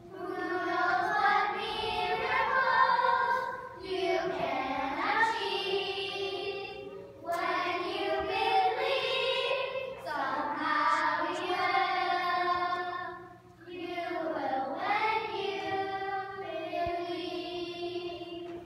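A group of young children singing together, in held phrases of about three to four seconds each with short breaks between them.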